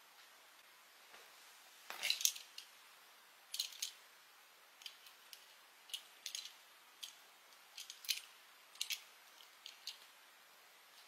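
Light clicks and taps of a die-cast Tomica toy bus being handled in the fingers, scattered irregularly, with a short clatter about two seconds in as it is picked up.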